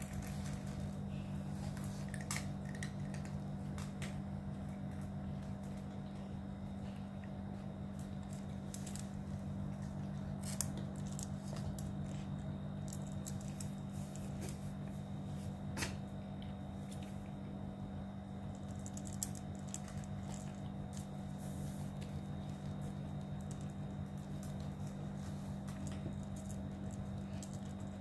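Cats crunching dry kibble from stainless steel bowls: many small, irregular crunches, with a few sharper clicks. A steady low hum runs underneath.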